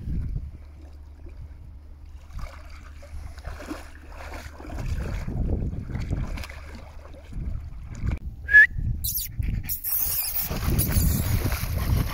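Water splashing at a riverbank, with wind rumbling on the microphone. A short, sharp high squeak comes about eight and a half seconds in, and then a louder hissing splash.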